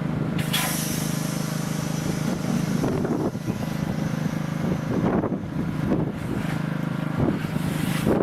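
A motor-driven machine running with a steady hum, with a hissing noise that starts sharply about half a second in, fades around three seconds, and returns from about five seconds to near the end.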